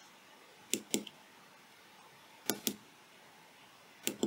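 Small push-button switches on a breadboard clicking, pressed and released three times, each press and release a quick pair of clicks.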